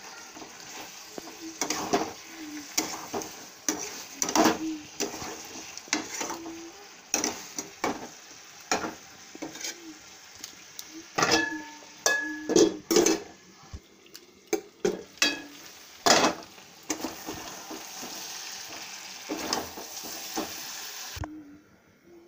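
Chicken curry sizzling in a steel wok-style pan, with a utensil repeatedly scraping and knocking against the metal. The frying hiss cuts off suddenly near the end.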